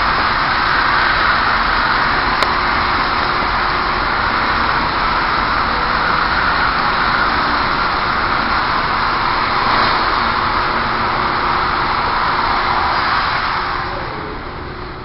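A loud, steady rushing noise with no clear pitch, fading out about a second before the end.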